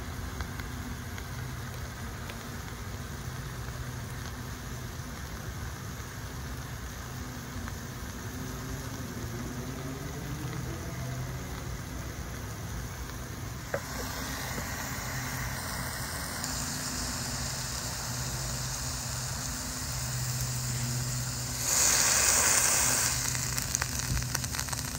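Ground beef sizzling in a small electric contact grill, over a steady low hum. A sharp click comes about halfway through, and a louder burst of hissing sizzle comes near the end.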